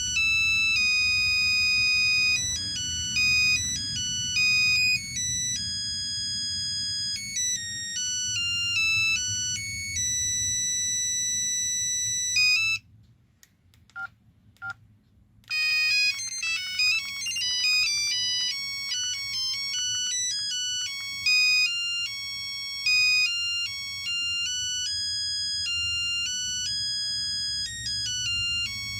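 Ringtones from an LG V111 mobile phone's small speaker: a high-pitched electronic melody of short notes. It stops about thirteen seconds in, two short blips follow, and another tune starts about two seconds later.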